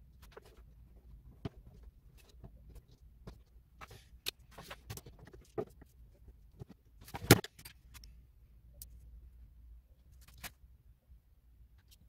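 Irregular clicks and knocks of hands handling a plastic fan-heater casing and tools on a workbench, with one sharp, louder knock a little past halfway.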